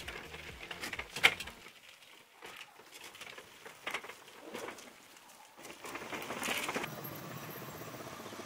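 Background music ends in the first two seconds, followed by a few light knocks and clicks. From about six seconds in, the homemade car's motor runs steadily as it drives up.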